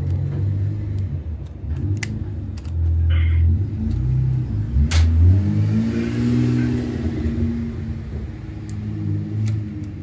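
Car engine running and revving, its low drone rising and falling in pitch, with a few sharp clicks over it.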